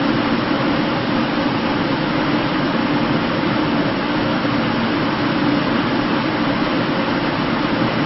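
Large ventilation system blowing a steady, unbroken rush of air, with a faint low hum running beneath it.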